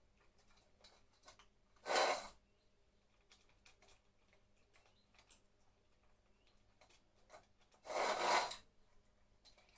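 Two cats eating from a shared bowl of food: faint scattered clicks of chewing and licking. Two short, loud rushing noise bursts, about 2 seconds and 8 seconds in, are the loudest sounds.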